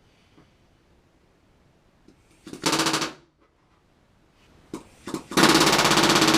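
Pneumatic rivet gun hammering AN426 flush rivets into the aluminium skin of an RV-7 horizontal stabilizer: a short burst about two and a half seconds in, a few quick taps near five seconds, then a longer burst of about a second near the end.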